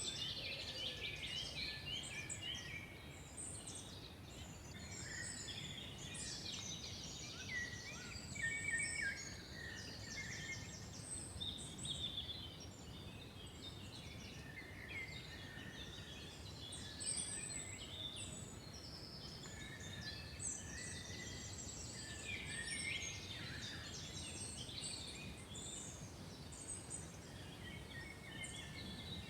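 A chorus of several songbirds singing and calling at once, with overlapping trills, chirps and whistled notes, over a faint low background rumble.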